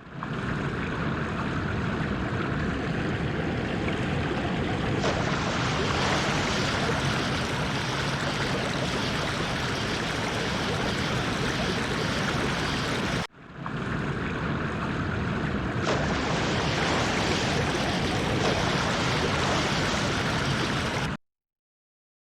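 Splashing, rushing water sound effect: a steady wash of water noise that breaks off for a moment about 13 seconds in, starts again, and cuts off suddenly about a second before the end.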